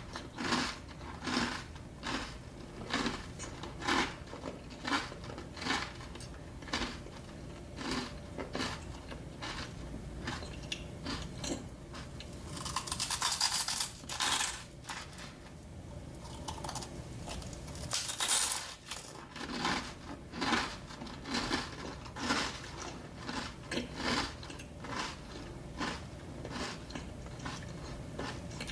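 Close-miked eating sounds from a dessert mukbang: a steady run of short chewing and mouth clicks, with two louder, longer crunchy bursts about halfway through and again a few seconds later.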